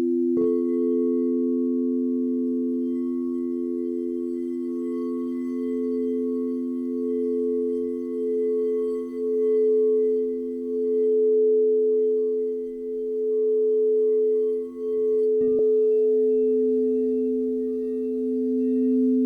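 Crystal singing bowls ringing together in long, steady, overlapping tones. A bowl is struck about half a second in, and its higher tone swells and fades in slow pulses. Another bowl is struck near the end, adding a further higher tone.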